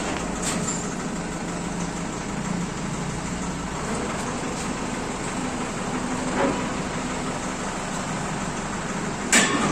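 Iseki TA337 tractor's diesel engine running steadily at low revs as the tractor creeps up the loading ramps into a truck bed. A single knock comes about six and a half seconds in, and a sharp click just before the end.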